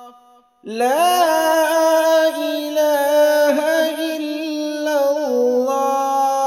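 A voice chanting an Islamic devotional recitation in long, held melodic notes, coming in after a brief pause about half a second in.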